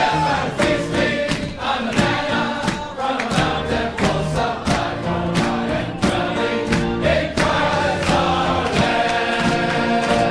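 Choir singing a hymn to a steady accompanying beat.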